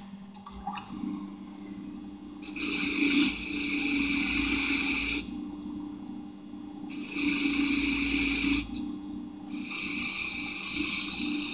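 Motor-driven wire wheel starts about a second in and runs with a steady hum. A welded bolt head is pressed against the wire three times, each a long stretch of hissing scratching as the weld is buffed.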